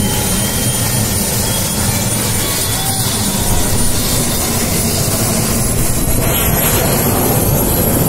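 Light turbine helicopter running on the ground with its main rotor turning: a steady rotor and engine noise with a thin high turbine whine that creeps slightly up in pitch.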